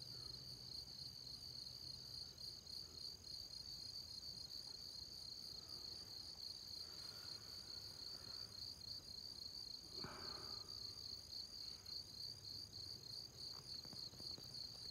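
Crickets chirping in a steady, fast, high-pitched trill.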